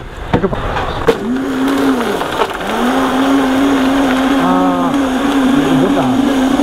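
A few clicks and knocks, then a heavy-duty electric blender motor spins up about a second in, cuts out briefly, and restarts, running at a steady speed as it blends lollipops and water into juice.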